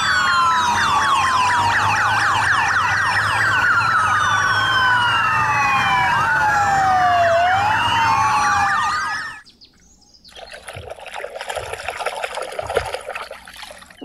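Sirens of a police motorcycle escort, several wailing at once in overlapping rising and falling sweeps, cutting off abruptly about nine seconds in. A fainter, rough noise follows.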